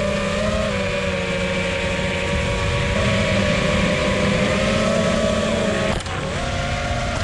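Brushless motors and propellers of an iFlight Titan XL5 5-inch FPV quadcopter whining steadily in flight, their pitch stepping up and down with the throttle. About six seconds in the whine dips briefly, then climbs back.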